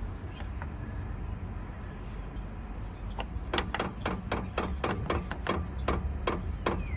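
Chinese diesel air heater starting up: its blower fan runs with a steady low hum, and about three seconds in the fuel dosing pump starts ticking rapidly, several sharp clicks a second, as it begins pumping diesel.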